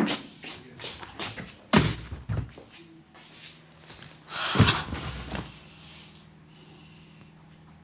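Heavy thumps and knocks of things being moved about by hand, with a scraping rustle between the loudest thumps, then quiet room tone for the last couple of seconds.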